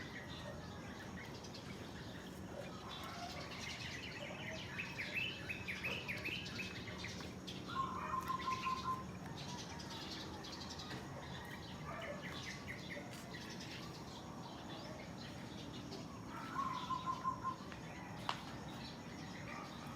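Songbirds chirping: quick runs of high chirps, and twice a short series of about five lower, even notes. A single sharp click comes near the end.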